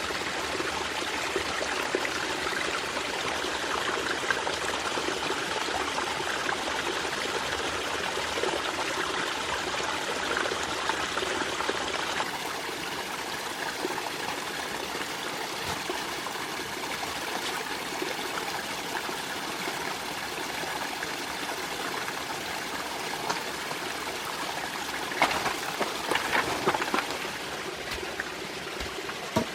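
Stream water running steadily. The sound steps down slightly about twelve seconds in, and a few short, sharper sounds come near the end.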